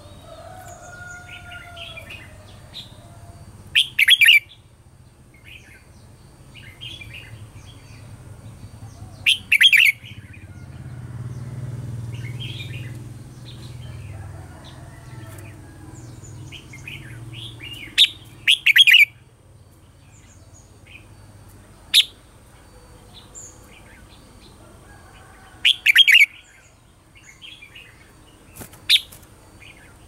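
Red-whiskered bulbuls singing: short, loud, bright song phrases every few seconds, with softer chirps and twitters in between.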